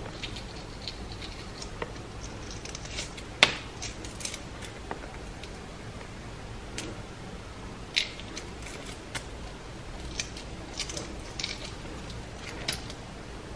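Hard-boiled egg being peeled by hand: scattered small cracks and crinkles of breaking eggshell, with a sharper crack about three and a half seconds in and another at about eight seconds.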